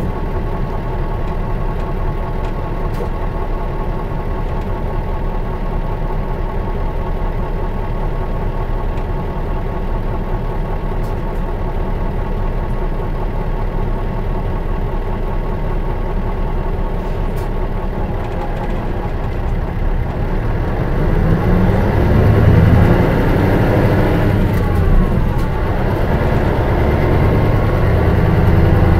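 Diesel engine of a 2002 Mitsubishi Fuso Aero Bus KL-MS86MP idling steadily, then about 21 seconds in growing louder and deeper as it revs up.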